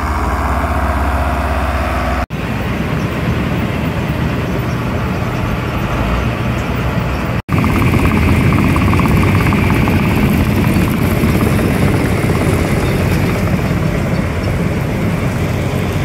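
John Deere tractor's diesel engine running steadily. After a cut, potato-handling machinery runs: a conveyor clatters as potatoes tumble off its end onto a pile. The sound breaks off for an instant twice.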